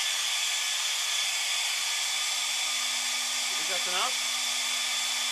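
Hair dryer blowing steadily, a rushing hiss with a thin high whine. It is warming a VW's ECU, whose bad solder joint is blamed for the car not starting when cold.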